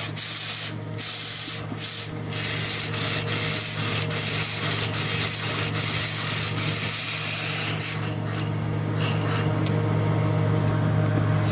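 Wooden dal masher churning thick cooked lentils in a large aluminium pot, a continuous wet swishing and rubbing, with a steady low hum underneath.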